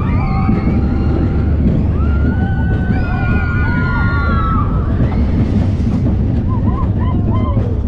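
On-ride sound of the Wipeout roller coaster, a Vekoma Boomerang, from the front row: a loud, steady rumble of the train with wind on the microphone, and high wavering cries from the riders above it.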